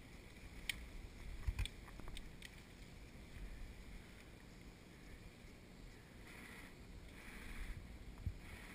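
Quiet outdoor ambience with a few faint sharp clicks and knocks and one low thump about a second and a half in.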